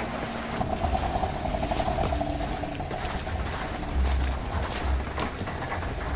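Melting snow dripping and trickling off roofs onto the street, with loud low rumbling bumps on the microphone, the strongest about four seconds in and near the end.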